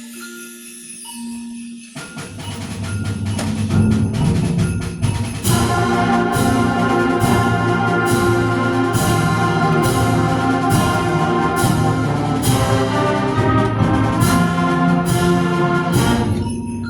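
Concert band playing. A few soft held notes give way to the full band, brass and percussion, coming in about two seconds in, with regular sharp percussion accents through the middle. It thins back to soft held notes near the end.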